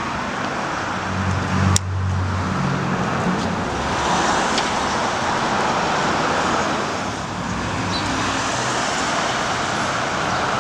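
Street traffic noise: a steady wash of passing cars, with a vehicle's engine hum standing out in the first few seconds. A single sharp click about two seconds in.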